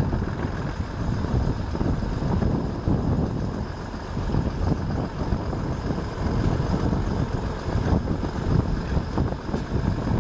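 Class 121 'bubble car' first-generation diesel railcar under way, its underfloor diesel engines running and the train rolling along with a steady heavy rumble. Heard from an open window, with wind buffeting the microphone.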